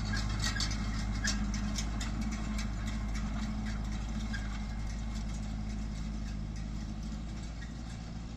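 Tractor engine running steadily while raking hay, with a light clatter of clicks over it.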